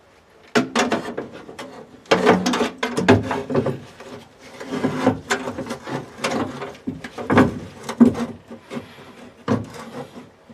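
Quarter-window regulator being worked up into a car's sheet-steel inner quarter panel: irregular clunks, knocks and scraping rattles of metal against metal, with the loudest knock a few seconds before the end.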